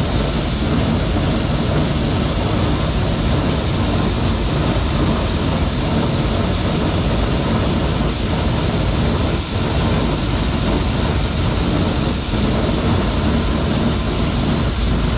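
Heavy farm machinery engine running steadily at a constant load, a continuous engine sound with a hiss over it and no changes.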